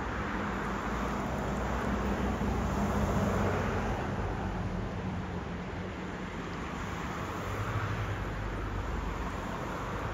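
Steady rush of a fast-flowing river with road traffic passing in the background, the low hum of vehicles swelling about three seconds in and again near eight seconds.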